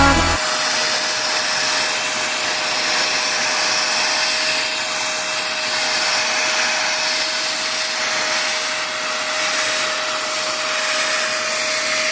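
Wap GTW 15 wet-and-dry vacuum cleaner running steadily, an even rushing noise with a constant whine from its motor.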